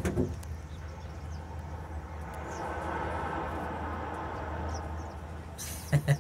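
Cable car gondola riding up the haul cable, heard from inside the cabin: a steady low hum and rumble, with a rush that swells and fades in the middle. A few sharp knocks come close together near the end.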